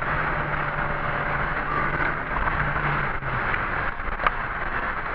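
Car driving, heard from inside its cabin: steady engine hum and road noise, the low hum dropping away a little over three seconds in, with one sharp click about four seconds in.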